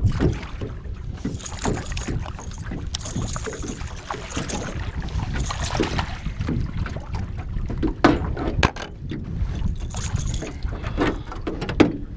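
Wind buffeting the microphone and lake water lapping against the hull of a small jon boat, with scattered sharp splashes and knocks as a hooked largemouth bass is played to the side of the boat and lifted out.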